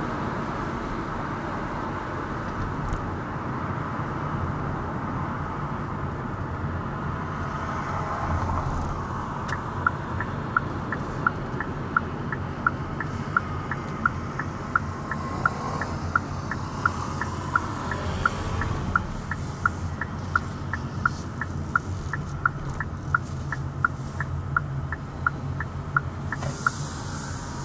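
Steady road and engine noise inside a moving car. From about a third of the way in, a turn-signal indicator ticks evenly at about two ticks a second, stopping near the end.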